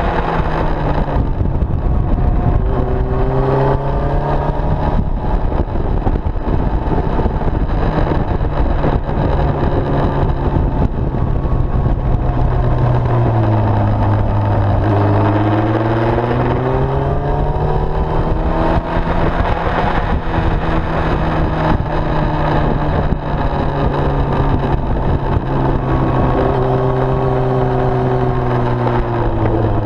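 A motorcycle engine heard onboard at track speed, over heavy wind rush. Its pitch climbs and falls as it accelerates and slows for corners, dropping low about halfway through and again near the end.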